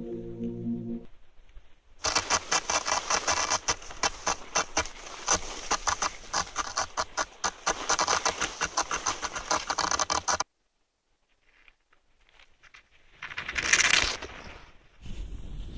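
Snow crunching and scraping close to the microphone as a skier moves through it: a fast, irregular run of crunches for about eight seconds that cuts off abruptly. After a pause of near silence comes a short gust of wind on the microphone, then steady wind noise.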